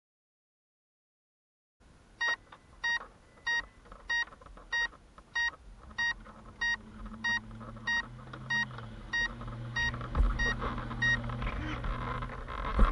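Silence for about two seconds, then a small electronic beeper sounding short, evenly spaced beeps, roughly three every two seconds, about fifteen in all, which stop shortly before the end. A low steady hum comes in under the beeps about halfway through.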